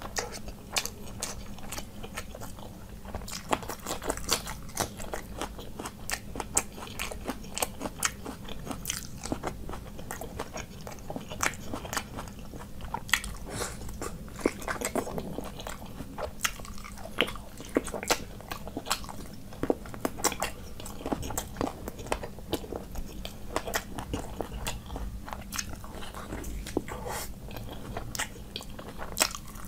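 Close-miked chewing and eating by hand: a person chewing rice and curried meat, with frequent sharp wet smacks and crunchy clicks.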